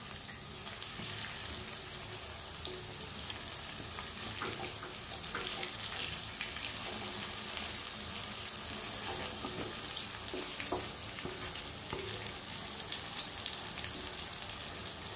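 Amla (Indian gooseberry) pieces and chillies sizzling in hot oil in a metal kadai, with a steady crackle and scattered small pops, stirred now and then with a wooden spatula.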